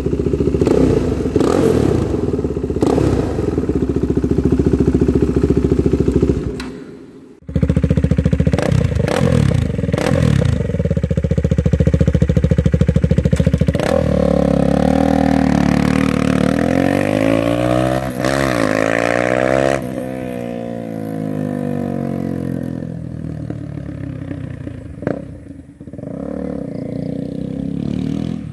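KTM Duke 390's single-cylinder engine running loud through a decatted custom mid pipe and the stock muffler with its dB killer removed, with a brief break about seven seconds in. Past the middle the bike passes by and its exhaust note fades away into the distance.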